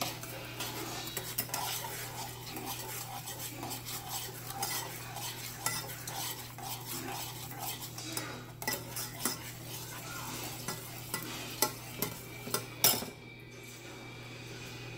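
A long metal spoon stirring and scraping around a saucepan on the stove in a steady rhythm of about two strokes a second, followed by a few sharp knocks of the spoon against the pot, the loudest about thirteen seconds in.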